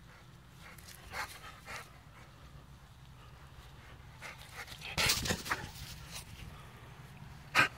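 Rottweiler panting during play, with a few short sharp barks. A loud cluster comes about five seconds in, and the loudest single bark comes near the end.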